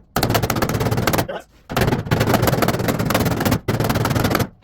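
Fast crackling rattle from a power tool working the rusted sheet metal, in three bursts that each stop abruptly.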